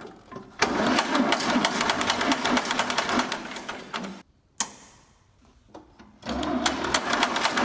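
Rapid mechanical clicking in two runs, the first about three and a half seconds long and the second starting about six seconds in, with a single sharp click in the quiet gap between.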